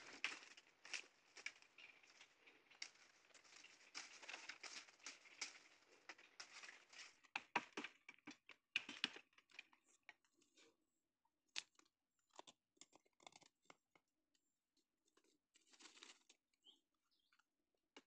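Footsteps crunching and crackling through dry fallen bamboo leaves for the first several seconds. After that, scattered light clicks and brief rustles of sticks and dry leaves being handled close to the ground.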